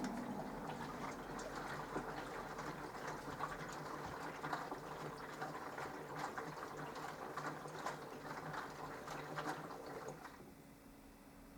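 Minicolo mini washing machine mid-wash: a motor hum with water sloshing and splashing in the tub. The motor and sloshing stop about ten seconds in, a pause in the wash rhythm.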